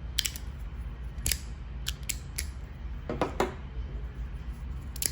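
Handheld fidget sliders being slid back and forth, their plates scraping and snapping to their stops in a series of sharp, irregular clicks, with a short cluster about three seconds in.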